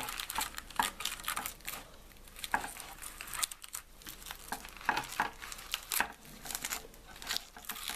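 Plastic protective film crinkling and crackling in irregular small snaps as it is picked at and peeled off a graphics card's fan shroud.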